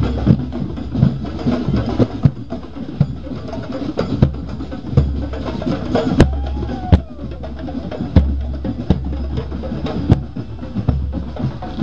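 Parade drum band playing: a large bass drum and other drums beaten in a busy, uneven rhythm of deep thumps and sharp cracks.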